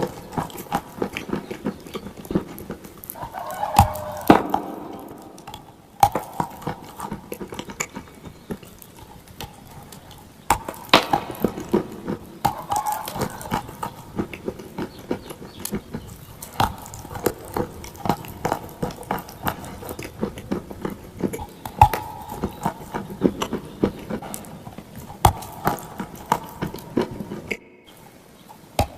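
Clay being crunched and chewed close to the microphone: a dense, irregular run of sharp crunches and crackles.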